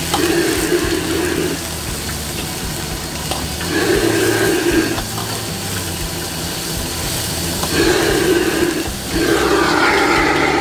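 Commercial wok station: the gas burner under a wok of greens blanching in boiling water, with a ladle stirring. It makes a steady rushing noise that swells in four surges.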